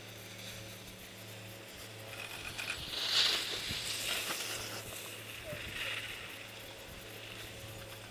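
Skis hissing and scraping over soft spring snow as skiers pass close by. The swell is loudest about three seconds in, with a smaller pass near six seconds, over a steady low electrical hum.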